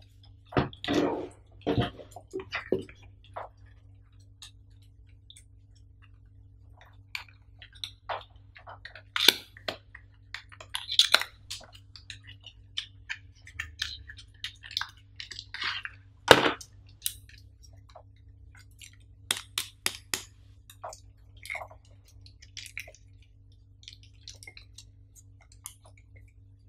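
Unboxing handling noise: paper and plastic packing rustling and crinkling, with irregular clicks and taps as a small cardboard box is handled, opened and set on the table, over a faint steady low hum.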